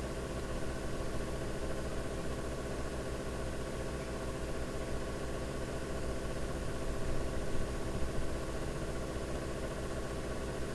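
A steady low hum with many even overtones, unchanging throughout.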